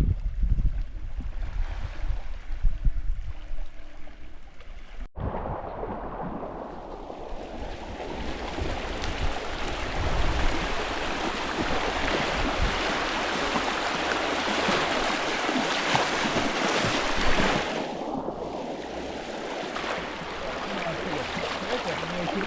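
Low rumble of wind on the microphone, then, after a cut about five seconds in, a steady rush of flowing river water.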